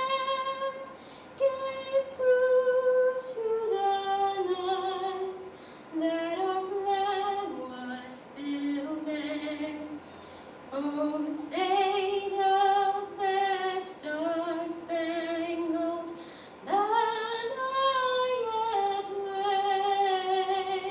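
A solo female voice sings the national anthem a cappella through a microphone and PA, in sustained phrases with vibrato and short pauses between lines.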